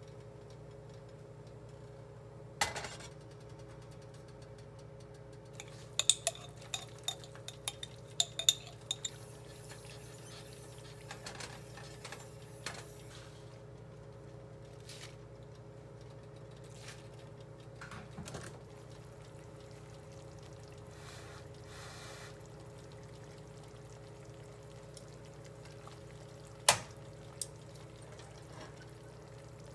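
Kitchen handling sounds while cooking in a nonstick frying pan on an electric coil stove: a sharp knock of the pan or a utensil, a quick run of ringing clinks of utensils and glassware about six to nine seconds in, and liquid being poured, over a steady low hum.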